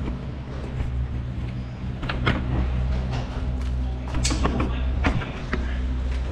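Handling noise of a phone camera being moved about: scattered sharp clicks and knocks over a steady low hum.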